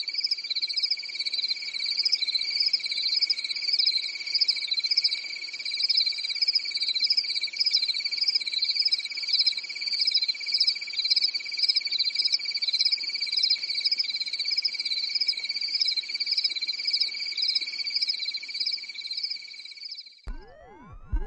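Night-time chorus of crickets and frogs: a steady high trill with a fast pulsing chirp above it. It cuts off abruptly about twenty seconds in, and a swooping sound effect follows.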